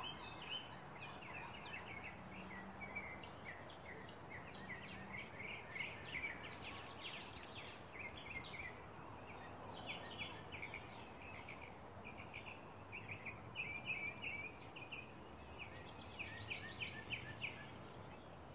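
Small birds chirping in quick, continuous runs of short notes, faint against a steady outdoor hiss.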